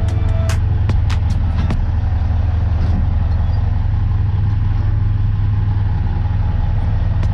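Dump truck's diesel engine idling with a steady low rumble, heard from inside the cab. There are a few light clicks in the first couple of seconds.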